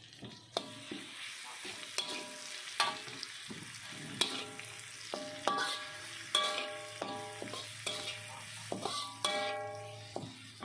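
Metal spatula scraping and knocking against a metal wok while spice paste, galangal, lemongrass and leaves are stir-fried, the pan ringing after many of the knocks, over the sizzle of frying. This is the sauté step, cooking the paste until fragrant.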